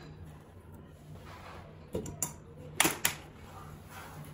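Clear plastic lid being fitted and clamped onto a stainless-steel mixer-grinder jar: four sharp plastic clicks and knocks, two about two seconds in and two close together near three seconds.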